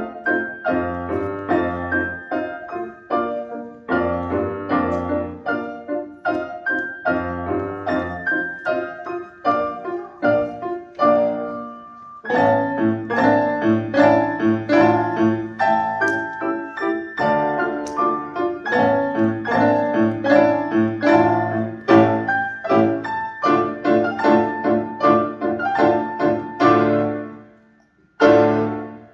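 A rondo played on a grand piano by a child: quick runs of notes over a bass line. The playing breaks off briefly near the end.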